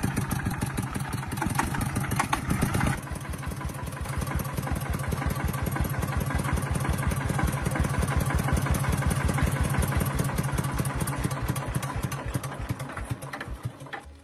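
Old diesel tractor engine running with a steady, even knocking beat; it drops to a quieter run about three seconds in and fades away near the end.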